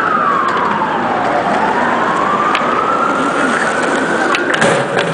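Emergency vehicle siren in a slow wail: the pitch falls for about a second and a half, climbs slowly back up and holds high, over steady city street noise. A few sharp knocks near the end.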